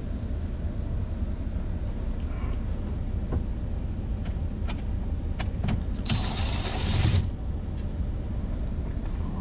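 Cordless drill/driver spinning for about a second, backing out a T20 Torx screw from a car's sunroof shade assembly, with a few small clicks before it and a steady low rumble behind.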